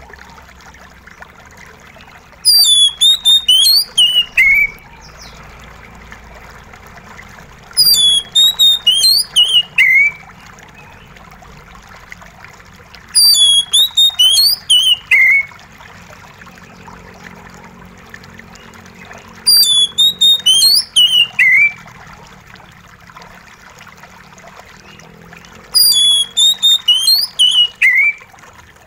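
Oriental magpie-robin (kacer) singing a short phrase of high whistled notes that ends in a falling slur. The phrase comes five times, about every five to six seconds, over a steady trickle of water.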